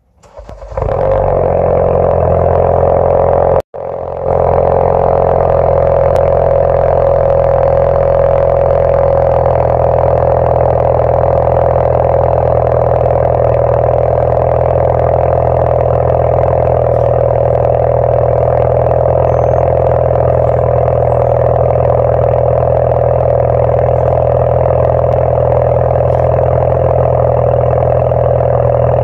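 2016 Ford Focus RS's turbocharged 2.3-litre four-cylinder cold-starting through an Extreme Turbo Systems titanium cat-back exhaust, catching within a second and settling into a loud, steady fast idle. The recording drops out for an instant about four seconds in, a microphone glitch.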